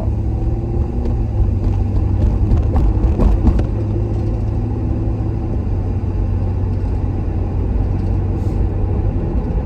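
Steady low engine and road rumble heard inside the cab of a moving Ford truck.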